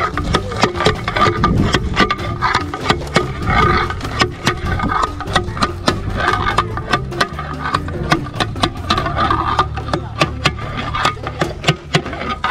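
Background music with a quick, steady percussion beat over a sustained low tone.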